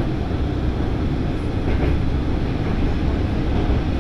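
Diesel railcar of the Yuri Kogen Railway running along the line, heard from on board: a steady, even rumble of engine and wheels on rail.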